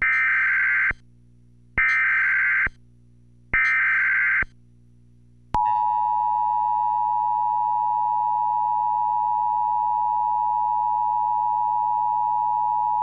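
Emergency Alert System activation signal. Three bursts of SAME digital header data, each about a second long, come first. Then, about five and a half seconds in, the steady EAS two-tone attention signal starts and holds. Together they open an alert, here a tornado warning.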